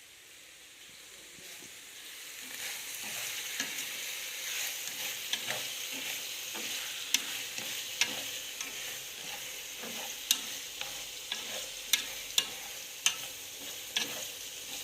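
Food sizzling as it fries in a hot pan, building up over the first few seconds, with sharp clinks of a utensil against the pan as it is stirred.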